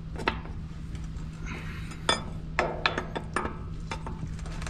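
Steel hand wrenches clinking on metal fittings and against each other: a scattered series of sharp, ringing clinks over a steady low hum.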